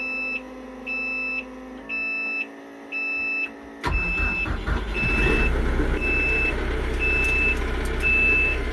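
A tractor cab's warning beeper sounds about once a second. About four seconds in, the TYM T654's Deutz four-cylinder diesel starts at once and settles into a steady idle, with the beeper still going. The owner puts the beeping down to the shuttle being left in reverse.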